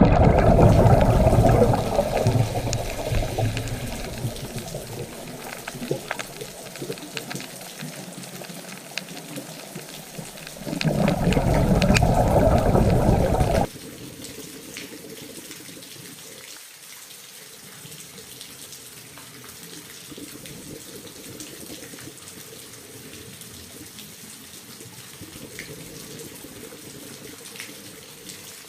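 Running, splashing water, like a tap or a filter outflow pouring into water. It is loudest in the first two seconds and again in a stretch that cuts off suddenly about 14 seconds in, then settles to a quieter steady trickle with small clicks.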